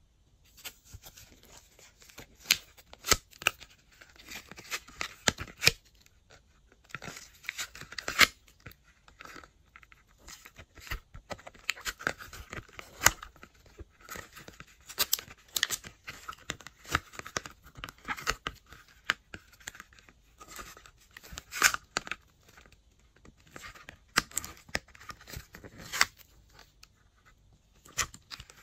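Glossy slime being mixed and kneaded by hand: irregular sticky pops and sharp clicks with softer crackling squishes in between.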